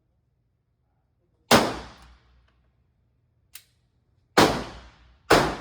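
Three pistol shots from a PSA Dagger fired one-handed, each a sharp report with a ringing, echoing tail: one about a second and a half in, then two in quick succession near the end, with a faint click between them.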